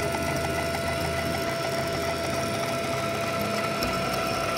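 Stepper motor driving a 1605 ball screw on the CNC-converted BF28 milling machine, a steady whine with a fast, even ticking as the screw turns.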